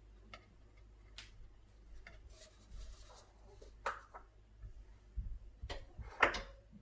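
Scattered light clicks, taps and rustling of kitchen utensils and containers being handled while seasonings are added to boiled bracken, with sharper knocks about four seconds in and near the end.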